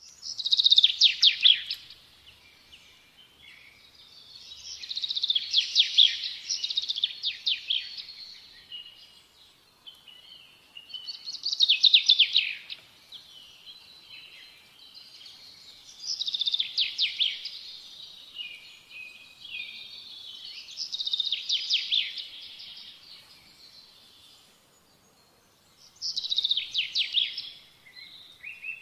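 Birdsong: a songbird sings about six phrases of rapid, high trills, each a second or few long, several seconds apart.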